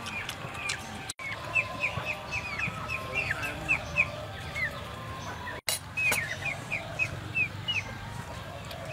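Birds chirping: quick runs of short, high chirps that fall in pitch, about four or five a second, broken twice by an instant's dropout in the sound, with a few sharp clicks.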